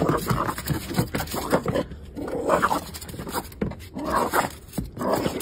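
Small dog making a run of short grunting, growling noises, coming in irregular bursts, as it rubs its head against a doormat.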